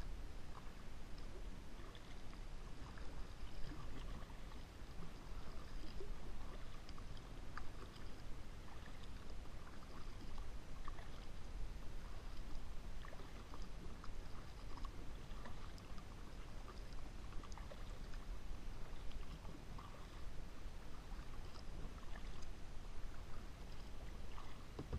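Kayak paddling on calm water: the paddle blades dipping, with soft irregular splashes and drips against the hull, over a steady low rumble.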